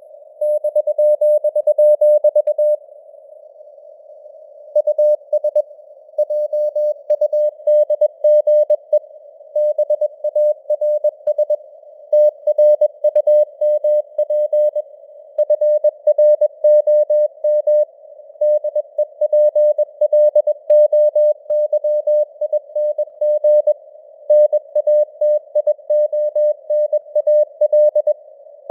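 Morse code at 21 words per minute: a single steady tone keyed on and off in quick dots and dashes over a faint band of simulated radio hiss. The keying stops for about two seconds shortly after the start, then runs on.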